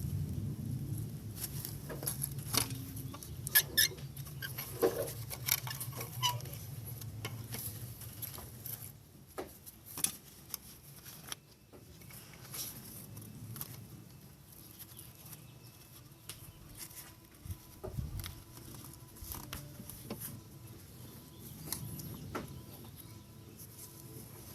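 Light clicks, taps and clinks of hand tools and small parts being handled, irregular and loudest in the first several seconds, over a low hum that fades about nine seconds in.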